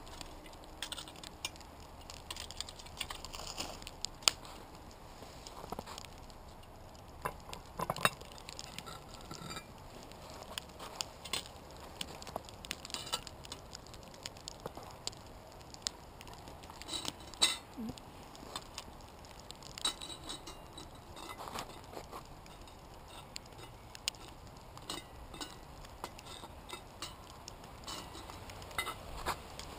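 Metal tongs and charcoal briquettes clinking, tapping and scraping against a cast-iron Dutch oven and its lid as the coals are moved about, in scattered irregular knocks with a few sharper ones.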